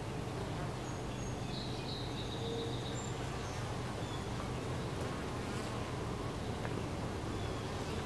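Honey bees buzzing at a hive entrance: a steady, even hum of many bees flying in and out.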